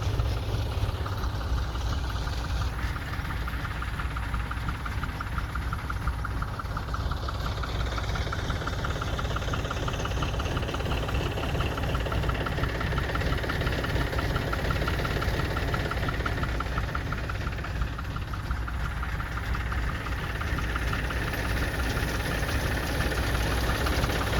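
An engine running steadily with a low drone and a fast, even ticking.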